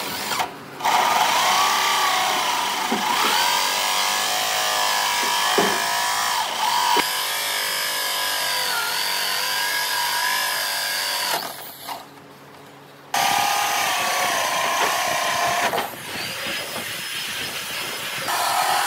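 Electric drill with a hole saw boring round holes through a wooden wall; the motor's whine rises and falls in pitch as the saw loads up in the cut. It stops for about a second and a half around twelve seconds in, then starts again.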